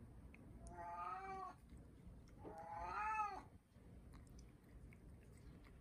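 Domestic cat meowing twice, each meow about a second long and arching up then down in pitch, the second louder. The cat is begging for more food while being hand-fed.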